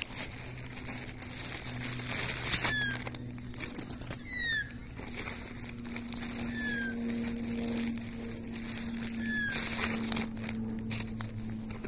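Four short, falling whistled bird notes a couple of seconds apart, the second one loudest, over a steady low hum. Near the end, a flurry of wing flapping from an Australian brush-turkey.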